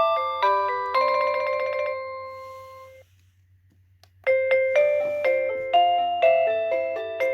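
Wireless doorbell receiver playing its electronic chime tunes. One melody ends on a long note that fades out about three seconds in; after a second of silence, a new tune of quick bright notes begins.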